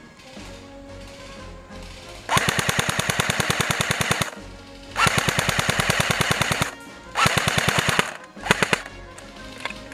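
King Arms Thompson airsoft electric gun (AEG) firing on full auto: three bursts of one to two seconds each at about fifteen shots a second, then a brief burst near the end.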